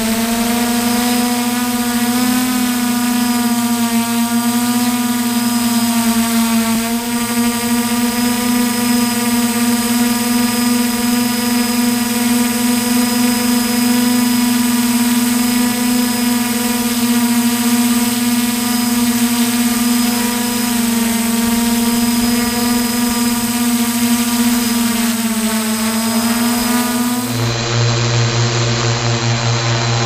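Multirotor camera drone's motors and propellers whining steadily, the pitch wavering slightly as it manoeuvres. A little before the end the sound switches abruptly to a lower, duller hum.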